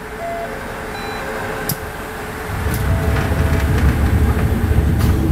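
Diesel railcar idling at a station, then its sliding passenger door closing in the second half with a louder low rumble.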